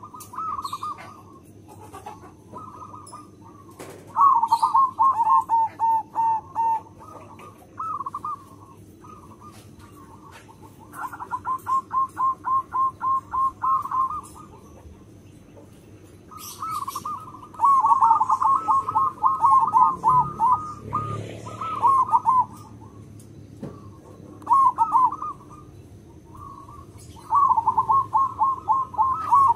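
Zebra dove (perkutut) singing its cooing song. There are about five phrases of quick, evenly repeated notes, each run lasting a few seconds, with short pauses between.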